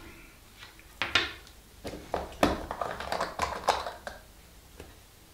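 Light clicks and taps of small hobby tools and plastic model parts being handled on a workbench, in a quick irregular run between about one and four seconds in.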